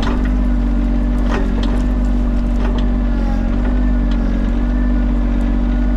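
Tractor engine running steadily while the backhoe pulls brush, with a few sharp cracks over it.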